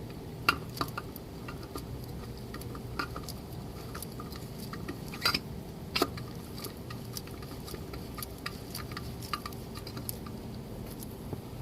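Scattered light clicks and taps of a new oil filter being handled and screwed on by hand, over a faint steady hum.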